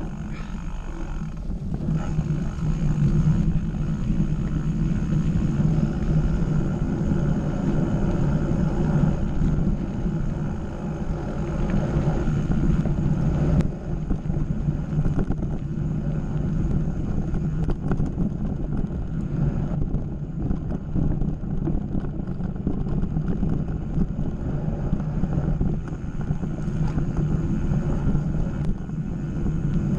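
Mountain bike rolling along a dirt singletrack: steady tyre rumble and rattle with wind on the camera microphone, and a few light knocks from bumps in the trail.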